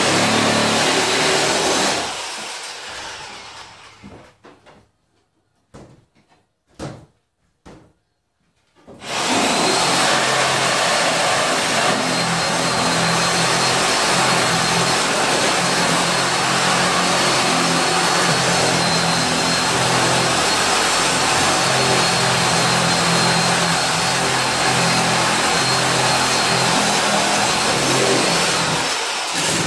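Corded reciprocating saw cutting into wooden wall framing. A first run winds down after about two seconds, the trigger is blipped a few times briefly, then the saw runs steadily from about nine seconds in, a constant motor whine over the cutting noise.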